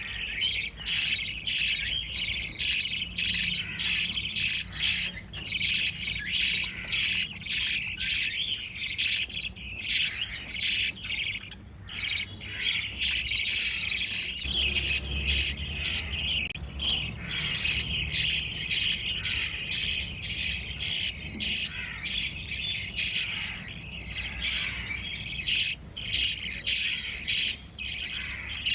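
Small parrot chicks begging as they are fed: a continuous, rapid pulsing of high chirps, repeating about twice a second.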